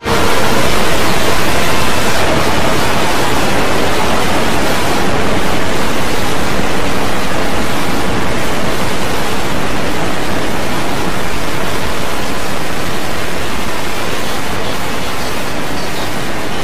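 Dozens of video soundtracks playing at once, blending into a loud, steady wall of noise in which no single sound stands out.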